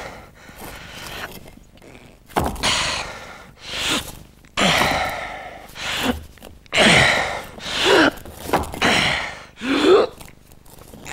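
A man straining with physical effort: a run of loud, hoarse gasping breaths and groans, about one every second. The later ones end in grunts that fall in pitch.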